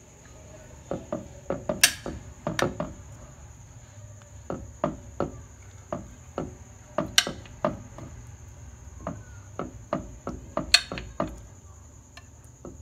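Metal knife cutting through a soft, rabri-soaked sponge cake in a glass dish, its blade knocking on the bottom of the dish in a run of short taps. Three of them, about two, seven and eleven seconds in, are sharper, ringing clinks.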